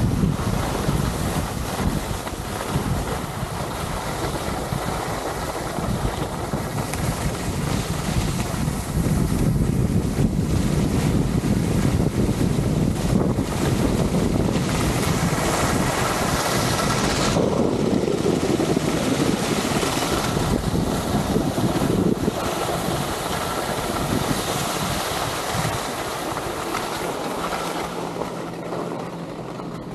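Wind rushing over an Insta360 X3 action camera's microphone and skis hissing over groomed snow on a fast downhill run, loudest in the middle at top speed and fading near the end as the skier slows to a stop. A low steady hum comes in near the end.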